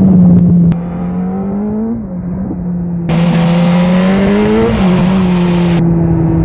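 BMW S1000RR inline-four engine pulling hard on a race track, heard onboard. Twice the pitch climbs and then drops sharply as it shifts up a gear. Wind rush runs over the engine for a few seconds in the middle.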